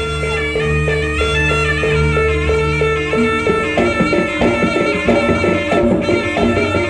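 Live traditional music for a kuda kepang dance: a held melody over a low drone, joined about four seconds in by a quick, steady beat of struck percussion.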